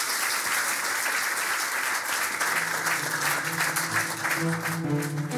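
Audience applauding steadily. About two seconds in, slow music with long, low held notes fades in underneath the clapping.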